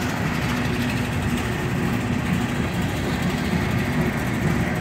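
Freight train hopper cars rolling past at trackside, a steady rumble of steel wheels on the rails.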